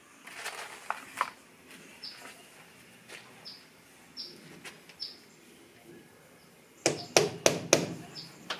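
Four quick hammer blows in a row near the end, nailing plastic lattice in place. A bird gives short falling chirps every second or so.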